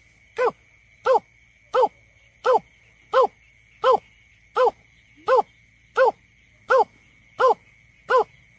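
Greater painted-snipe's call played back as a survey lure: an even series of short, mellow hoots, about three every two seconds, each rising and falling slightly in pitch.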